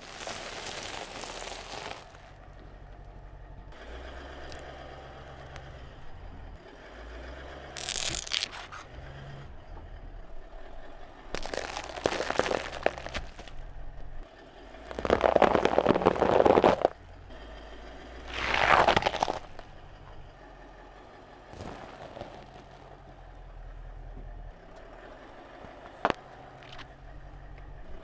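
A car tyre rolling over and crushing piles of food on concrete, heard as several separate bursts of crunching and crackling: caramel popcorn crackling under the tyre, then foil-wrapped Kinder chocolate eggs crunching, the loudest burst a little past halfway. A single sharp snap comes near the end.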